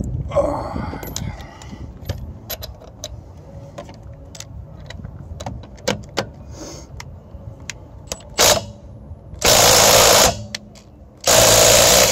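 Cordless Makita impact wrench: a brief trigger blip, then two loud bursts of hammering about a second each, near the end. Before them, scattered light clicks and knocks of the socket and tool being handled.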